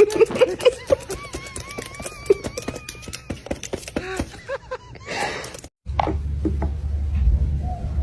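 A parrot's beak clicking and crunching rapidly, mixed with short squawks and a wavering whistle. After a cut just before six seconds in, a low steady hum with a few scattered taps.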